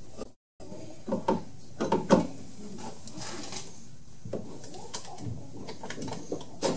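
Drill press running while drilling 5/16 inch holes through aluminium C-channel, with irregular knocks and rattles as the metal channel is shifted and set on the table between holes. The loudest clatter comes about one to two seconds in.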